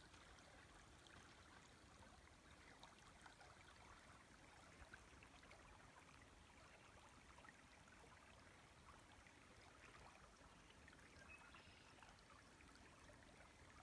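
Faint river flowing, a soft steady rush with small trickling crackles.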